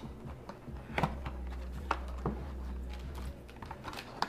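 A few scattered sharp clicks and taps, about a second apart, over a steady low hum.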